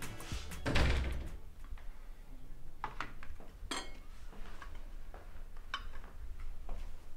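A dull thump about a second in, then a few scattered light knocks and clinks of china cups, saucers and a jug being set down on a table.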